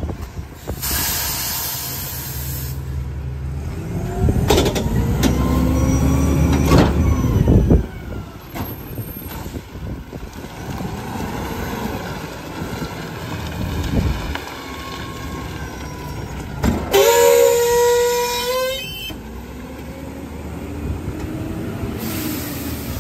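McNeilus rear-loader garbage truck working: air hisses in bursts, the engine revs up with a rising whine for a few seconds as the hydraulic packer cycles, and later the brakes squeal with more air hiss.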